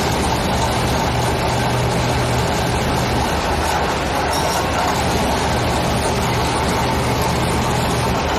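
Piling rig's heavy diesel engine running steadily with an even mechanical din, with no hammer blows.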